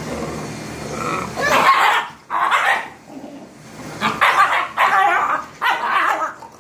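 Eight-week-old German Shepherd puppies play-fighting, growling and barking. A lower rumbling growl comes first, then about five short loud bursts from near the two-second mark on.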